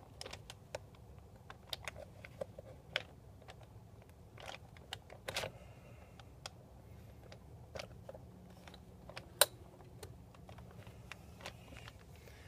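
Scattered light clicks and ticks of a second piston ring being spread with a ring expander and worked onto a small-block Chevy 350 piston. One sharper click comes about nine seconds in.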